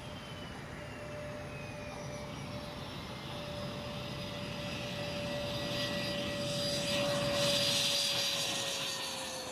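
HondaJet's twin over-the-wing turbofan engines whining as the jet comes in low over the runway with its gear down. The sound grows steadily louder to a peak about eight seconds in as it passes close by, and the steady whine drops slightly in pitch near the end.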